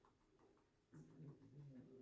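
Near silence: room tone, with a faint low hum coming in about halfway through.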